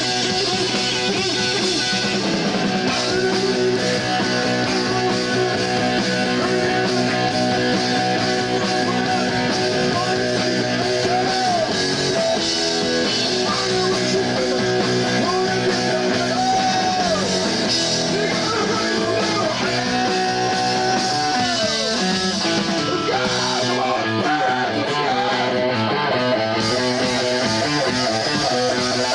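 A live punk rock band playing loud: electric guitars, bass and drums, with held notes that bend in pitch several times.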